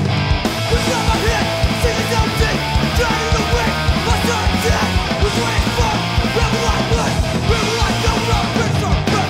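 Studio recording of a skacore (ska-hardcore punk) band playing at full volume with a fast, driving beat.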